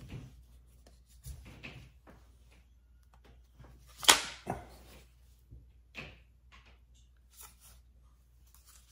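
Handling noise from a Ruger PC Charger pistol being turned over in the hands: scattered light clicks and rubs on its chassis and grip, with one sharp knock about four seconds in.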